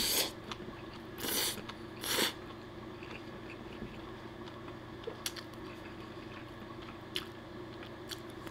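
A person slurping spaghetti from a fork: three short slurps in the first two seconds or so, then chewing with small wet clicks.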